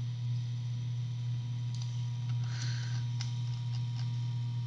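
A steady low electrical hum, with a few faint, scattered clicks of a computer mouse.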